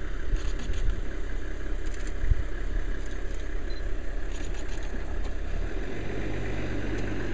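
Vehicle engine idling with a steady low rumble, with a few faint clicks.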